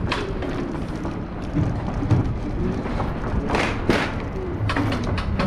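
Wind buffeting the microphone over a low rumble of road and traffic noise while riding through city streets, with a few thuds and a short hissing rush about three and a half seconds in.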